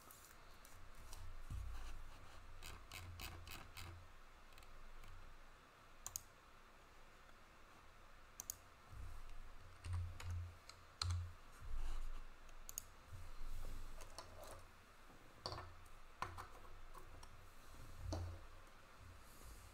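2020-21 Panini Prizm Premier League trading cards being handled and flicked through by hand: stiff chromium cards and clear plastic card holders giving sharp scattered clicks, with short quick runs of clicks and a few dull low thumps on the table.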